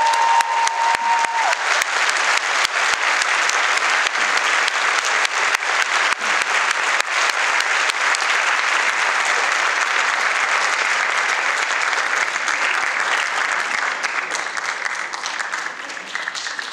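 Audience applauding steadily, with dense rapid clapping that thins and fades out over the last few seconds.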